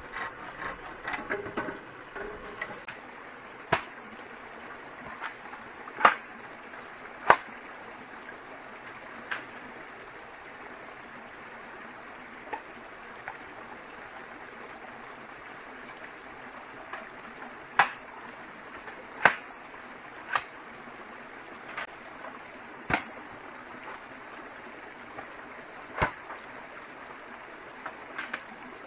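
Sharp knocks or taps at irregular intervals, about fifteen in all, some much louder than others, over a steady hiss.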